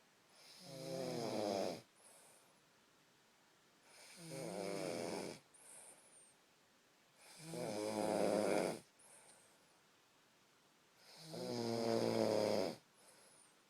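A person snoring: four long rattling snores, one about every four seconds, each followed by a short, faint whistle.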